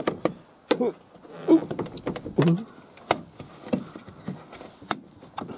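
Plastic pillar trim panel of a Toyota Alphard being pulled loose by hand. Its retaining clips and panel edges give a string of irregular sharp clicks and short creaks.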